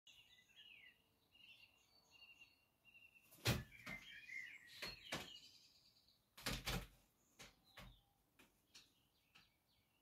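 High chirping bird calls come and go, broken by a series of sharp knocks and thumps from a great grey owl moving about on its wooden shelf and perch. The loudest knocks come about three and a half seconds in and again, in a close pair, around six and a half seconds, with smaller taps after.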